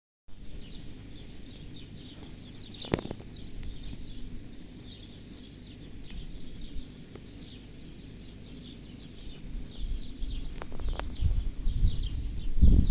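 Small birds chirping over and over in short, high, falling notes, with a sharp click about three seconds in and a low rumble that grows over the last few seconds.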